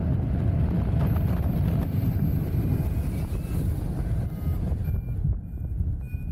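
Airflow rushing over the microphone of a paraglider in flight, a dense low rumble. Over it, from about halfway through, a flight variometer gives short, high, repeated beeps, which is its signal that the glider is climbing in lift.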